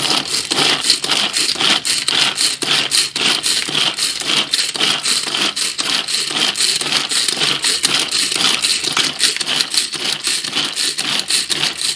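Hand-pull cord food chopper worked with repeated pulls, its blades spinning inside the plastic bowl and chopping onion pieces with a continuous rattling, crunching whirr.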